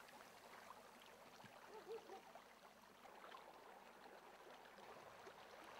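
Near silence: faint outdoor room tone, with a couple of faint short sounds about two seconds in.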